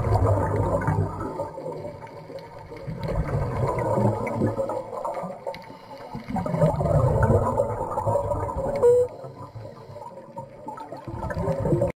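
Scuba diver's exhaled bubbles from the regulator, heard underwater as a bubbling rush that swells and fades four times, a few seconds apart, one swell with each breath out.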